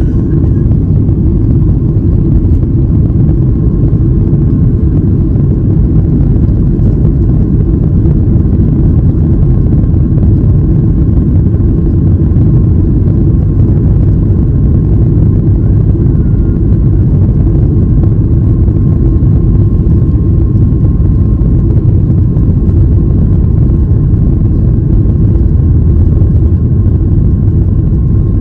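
Cabin noise of a Boeing 737-8 MAX during takeoff, its CFM LEAP-1B engines running: a loud, steady low rumble with a faint steady whine above it.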